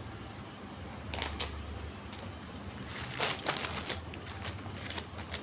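Crisp rustling and crinkling of clothing being unfolded and handled, in short clusters about a second in, around three seconds, and again near the end.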